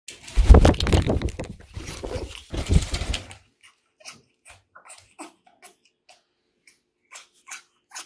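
Loud rustling and bumping close to the microphone for about three seconds, then a run of short, soft squeaks and clicks from an African grey parrot.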